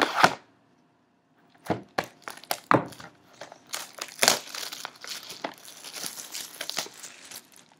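Packaging wrap on a box of trading cards crinkling and tearing as the box is opened, with sharp crackles after a short pause about a second in.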